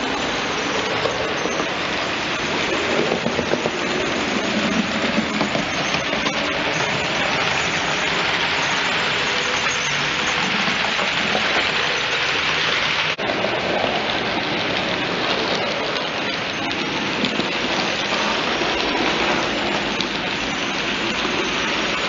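Model freight train with a ROCO electric locomotive running on track: a steady, dense rattle of the wagons' wheels on the rails, with a brief drop about 13 seconds in.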